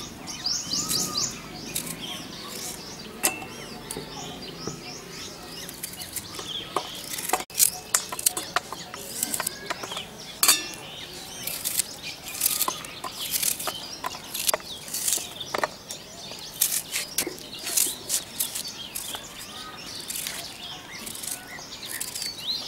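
A small knife cutting through an onion held in the hand: irregular crisp cuts and clicks as it is chopped finely. Birds chirp in the background, most plainly near the start.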